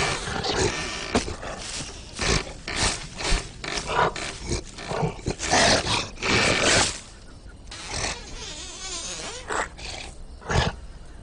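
Cartoon lion roaring and growling in a series of short loud bursts, with quieter gaps.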